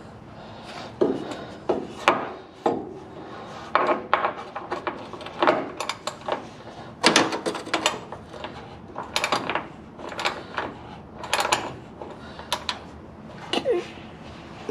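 Hand tools clanking and knocking on metal suspension parts, an irregular run of sharp knocks, clinks and scrapes.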